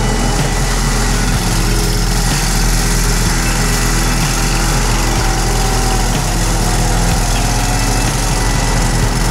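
Engine of a Slope-Pro tracked slope mower running at a steady speed while it mows, with a constant hiss over the engine note.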